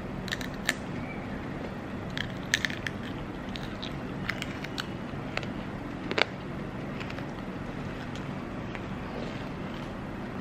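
Crunching and crackling of a brown-sugar tanghulu coating on a strawberry as it is bitten and chewed close to the microphone: a scatter of sharp crunches through the first seven seconds, the loudest about six seconds in, then only a few. A steady low hum runs underneath.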